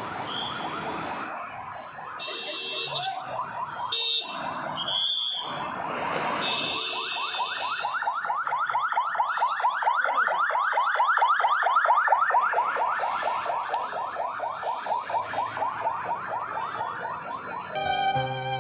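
Ambulance siren sounding a fast, repeating yelp, one rising sweep after another several times a second; it gives way suddenly to music near the end.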